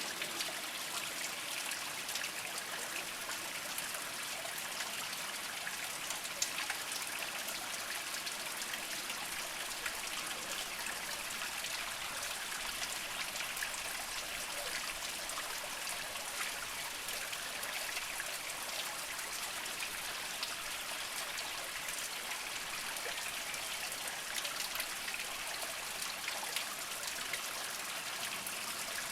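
A small mountain spring trickling steadily over mossy rocks, with many small drips and splashes.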